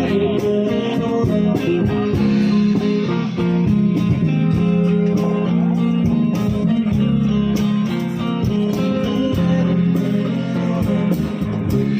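Live song's instrumental guitar passage, with no singing, over a steady beat. It stops near the end.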